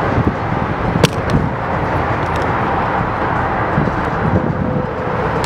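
Steady outdoor rumble and hiss, with one sharp click about a second in.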